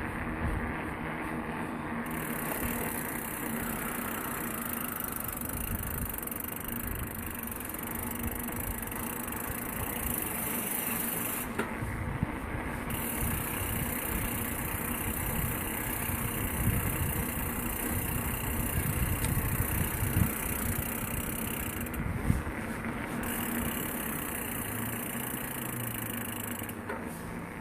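Riding noise from a 2019 Kona Big Honzo steel mountain bike on 27.5-plus tyres: a steady rumble of tyres and wind on the microphone, with a few sharp knocks as it goes over bumps.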